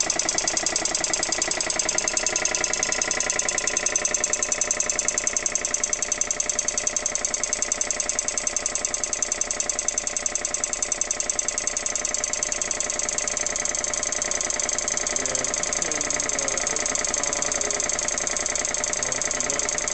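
Vintage Dunlop reciprocating air compressor running under its electric motor, pumping up pressure with a rapid, even pulsing beat.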